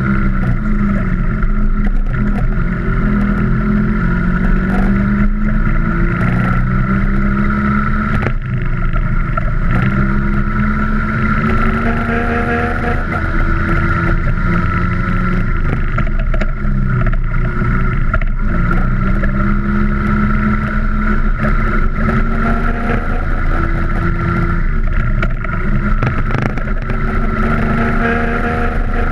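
Vintage Vespa scooter's two-stroke engine running under load off-road, its pitch climbing and dropping back several times as the rider accelerates and eases off or shifts.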